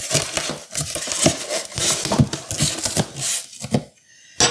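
Packaging being handled: foam packing blocks and plastic wrap rustling, scraping and crinkling in a dense, uneven stretch that stops shortly before the end.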